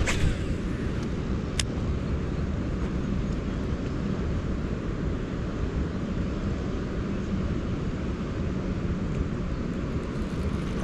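Steady low rumble of water pouring through a dam's spillway gates into the river below. A sharp click sounds at the start and another about a second and a half in.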